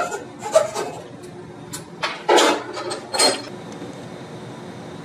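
Hacksaw rasping through a wooden dowel held in a bench vise, finishing its cut within the first second, then two short clinking knocks about two and three seconds in.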